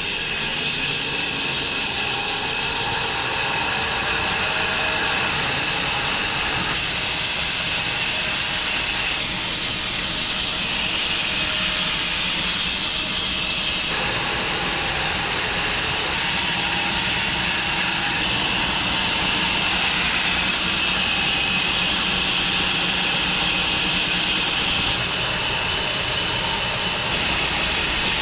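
Home-built wide bandsaw mill running steadily, its blade sawing lengthwise through an elm log with a loud, hissing cutting noise.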